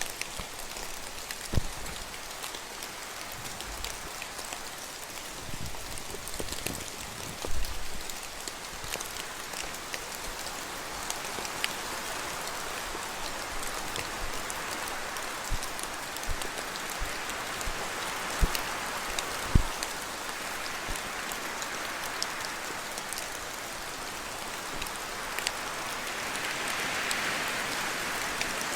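Steady rain falling in a spruce forest, with drops from the trees landing as scattered sharp taps and a few louder thuds.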